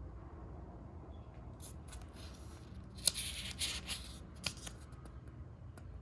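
Watch packaging being handled and opened: rustling and scraping with a few sharp clicks, busiest in the middle, over a steady low hum.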